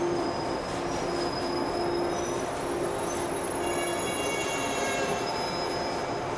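Shinano Railway 115-series electric train at a station platform: a pulsing hum for the first three seconds, then several high-pitched squealing tones from about three and a half seconds in, as of wheels or brakes squealing.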